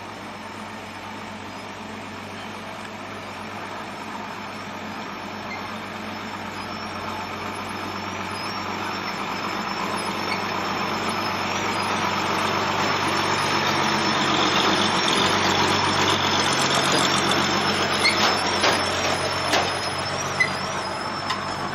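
Old Toyota 'buaya' dump truck's diesel engine running as the truck drives up a gravel road and passes close by, growing steadily louder as it approaches. A few sharp clacks sound as it goes past near the end.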